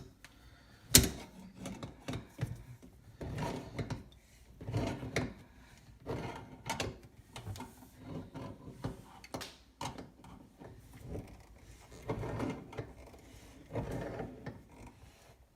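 Channel-lock pliers tightening the mounting nut of a bathroom sink pop-up drain: irregular clicks and knocks as the jaws grip and turn the nut, with one sharp click about a second in.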